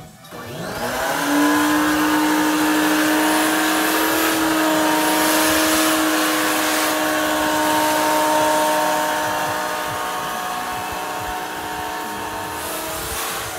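Wet/dry shop vacuum switched on: its motor spins up to a steady whine over a loud rush of air, then runs steadily.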